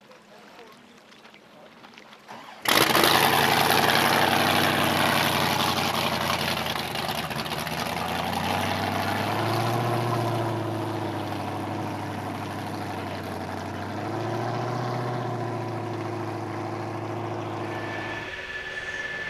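Racing outboard motors running at low, unsteady speed, their pitch wavering up and down. The sound cuts in abruptly nearly three seconds in and eases off a little near the end.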